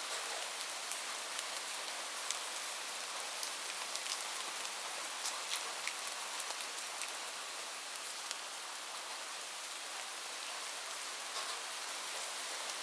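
Light rain falling steadily: an even hiss with many small, irregular drop ticks on a surface.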